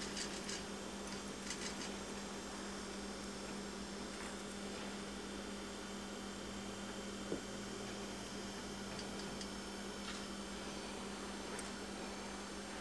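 Steady electrical mains hum over a low hiss, with a few faint clicks in the first two seconds and one sharp tick about seven seconds in.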